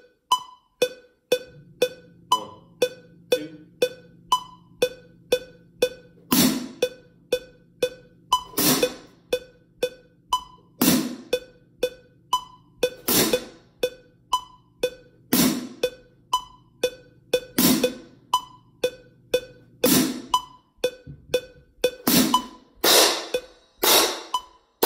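Metronome clicking steadily at 120 beats per minute under a pair of marching crash cymbals playing an accent-tap exercise. Loud ringing cymbal accents fall about every two seconds from about six seconds in, then come quicker near the end.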